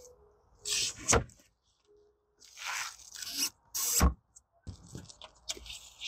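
Plywood bed-platform panels faced with foil foam insulation being handled and laid into place: irregular scraping and rustling, with sharp knocks about a second in and again about four seconds in.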